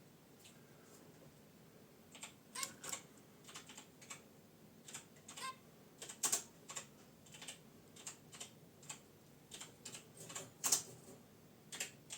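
Zebra finches in their cage making an irregular scatter of short, sharp ticks and clicks, a few a second, starting about two seconds in.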